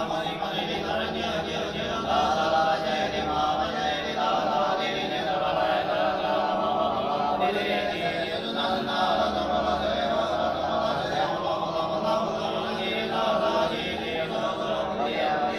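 Group of Chinese Buddhist monks chanting together in unison, on long held notes without a break, as liturgy during a Buddhist service.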